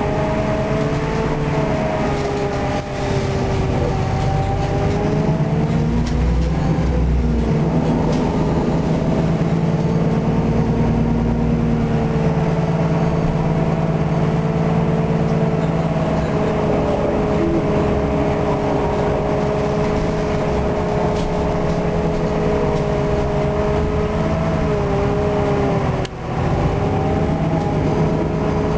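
Solaris hybrid city bus heard from inside the passenger cabin while driving: a steady drivetrain hum with a couple of whining tones over low road rumble. The tones sag and recover a few seconds in and again near the end as the bus changes speed.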